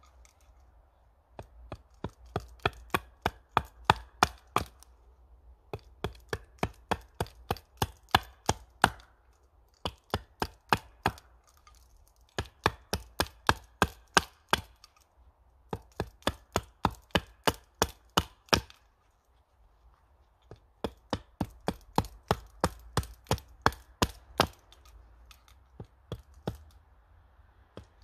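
Small axe chopping into the lower end of an upright wooden pole, sending off wood chips. The knocks come quickly, about four a second, in runs of a few seconds with short pauses between.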